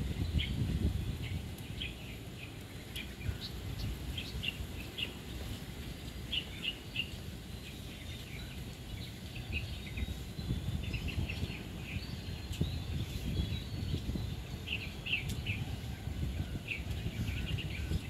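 A flock of small birds chirping: many short, high calls scattered all through, over a low, steady rumble.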